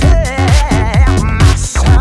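Electronic dance music with a steady four-on-the-floor kick-drum beat and a wavering synth melody.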